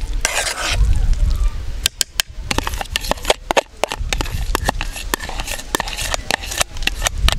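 A metal spoon scrapes briefly around a frying pan of soya chunks and eggs. Then comes a run of irregular sharp pops and crackles as the food fries in the pan, with a low rumble at times.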